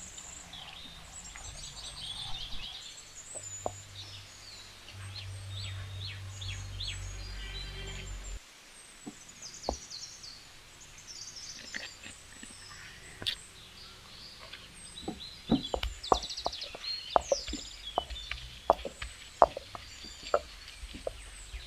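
Small birds chirping and calling, with a low rumble that cuts off about eight seconds in and a quick, irregular run of sharp knocks in the second half.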